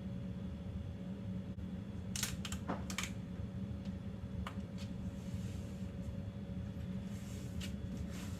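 Self-adhesive vinyl veneer film being handled and pressed into place: scattered light clicks and crackles, with soft rustling twice later on, over a steady low hum.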